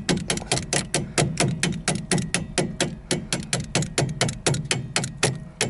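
Rapid, even metallic clicking, about five clicks a second: a hand ratchet with a 17 mm socket working a nut off a rear strut mounting bolt on a Hyundai Accent.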